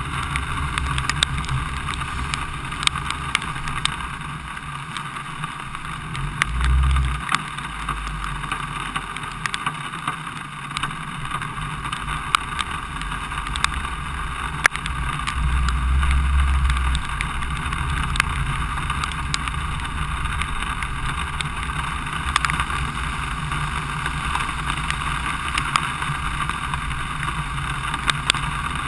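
Steady hiss of travel along wet streets in rain, with wind rumbling on the microphone and swelling twice, about seven and sixteen seconds in. Scattered sharp ticks run throughout.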